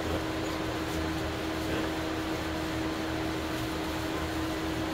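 Thermostat-controlled fan running steadily: an even whooshing noise with a constant hum.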